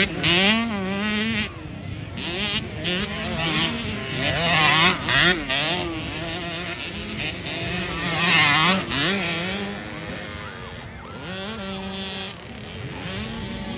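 Several 50cc motocross bikes racing, their small engines buzzing and revving up and down in pitch as the riders work the throttle over the dirt track. Near the end the engines fade a little.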